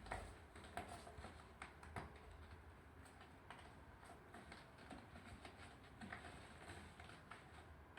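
Near silence: room tone with faint, scattered small clicks and ticks.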